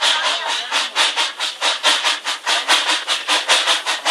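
Miniature railway steam locomotive chuffing in a fast, even beat of about six or seven exhaust puffs a second as it hauls the train along.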